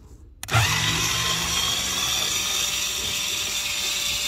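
Cordless drill/driver spinning a screwdriver bit to back out a cabin-filter cover screw. The motor starts about half a second in and runs steadily without a break, with a whine that rises slightly at first.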